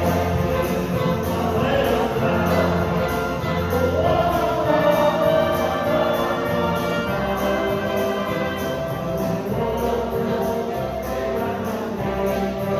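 A choir singing gospel music with an orchestra accompanying, sustained chords held at an even level.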